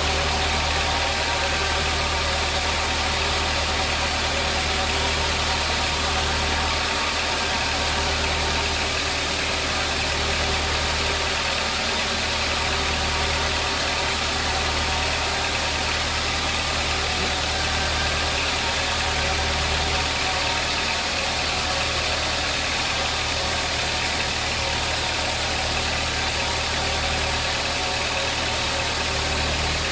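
Sawmill machinery running steadily with a low, engine-like drone that swells and eases slightly but never stops or changes pace.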